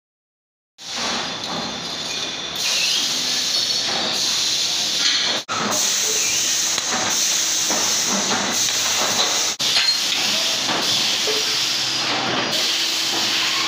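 Factory floor noise: a steady hiss of running machinery with scattered metal clanks and knocks. It begins about a second in and drops out briefly twice.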